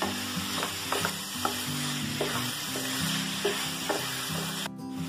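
Chicken pieces sizzling as they fry in hot oil with onion and tomato, a spatula stirring them and scraping lightly on the frying pan. The sizzle breaks off for a moment near the end.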